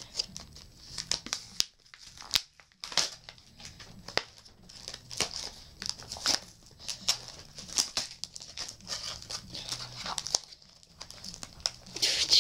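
Plastic packaging crinkling and rustling as it is handled, in irregular bursts with sharp clicks and snaps, busiest near the end.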